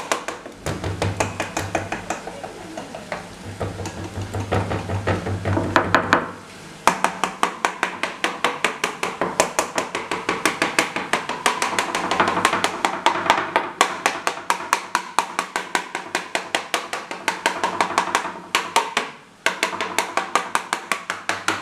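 Fork pricking thin pizza dough on a metal baking tray: quick, regular taps, about four a second, as the tines go through the dough and strike the tray. There are brief pauses about six seconds in and near the end.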